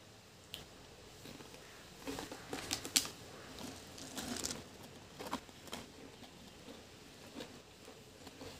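Irregular clicks and crackles of Pringles potato crisps in their cardboard can as a hand reaches in for more, with a sharp snap about three seconds in.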